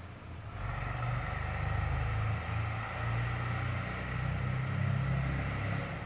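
Low, steady engine rumble that swells about half a second in and eases off near the end.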